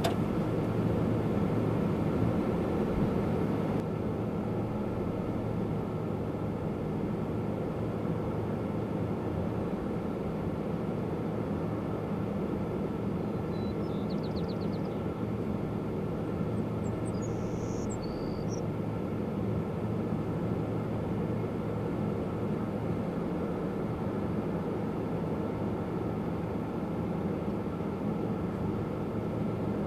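Steady engine and road noise heard from inside a pickup truck's cabin, with a low even hum. A couple of faint high chirps come about halfway through.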